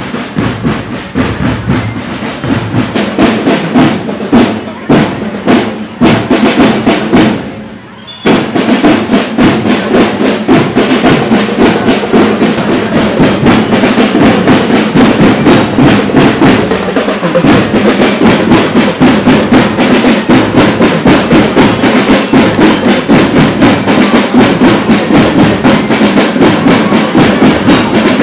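Marching drum band playing: loose, irregular drum strikes at first, then about eight seconds in the full band locks into a steady, fast drum beat that carries on.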